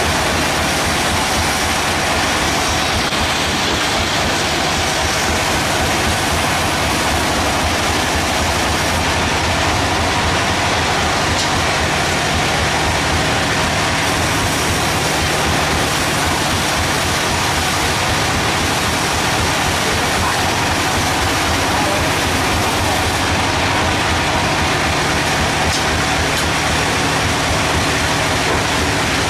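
Sawmill machinery running steadily: a loud, even mechanical din with a low hum underneath and no breaks.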